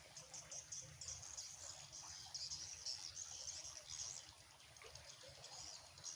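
Faint, continuous high-pitched chirring of insects, fluttering rapidly, with a low background rumble underneath.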